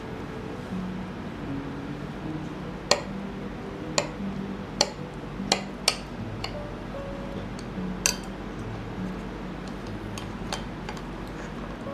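Soft background music with held notes, over a scatter of sharp clinks of dishes and cutlery, about eight of them spread through.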